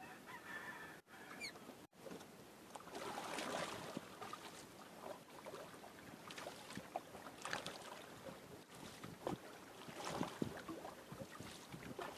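Water splashing and lapping against a small outrigger canoe, coming in irregular surges.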